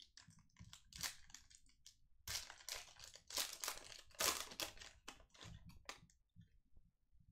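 Trading cards being flipped through and handled: a run of crisp rustles and clicks, thickest in the middle.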